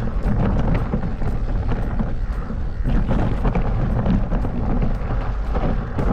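Mountain bike ridden over rough trail: steady wind buffeting and rumble with irregular rattling clicks.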